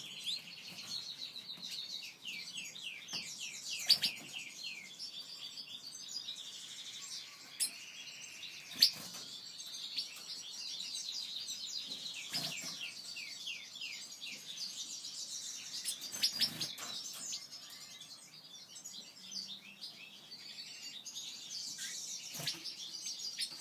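Black-headed siskins twittering and singing: a long, rapid run of high, scratchy notes that carries on with short breaks. A few sharp clicks stand out over the song.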